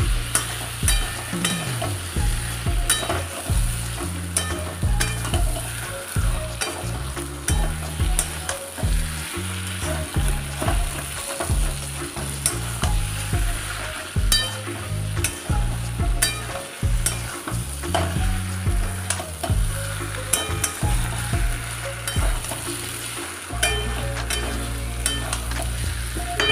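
Metal spatula scraping and knocking against a metal kadai, several strokes a second, as mutton and potato pieces are stir-fried in thick masala, with a steady sizzle of frying under it. The potatoes are being browned in the masala at the kosha stage.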